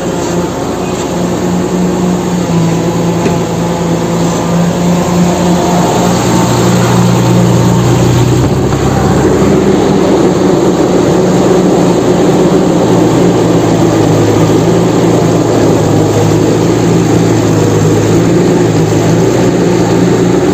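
Steady engine-like drone that shifts in pitch and grows louder about six seconds in.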